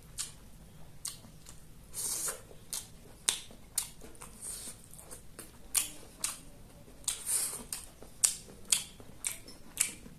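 Close-miked eating sounds: chewing and biting of food, with an irregular run of sharp, wet clicks and smacks about two a second.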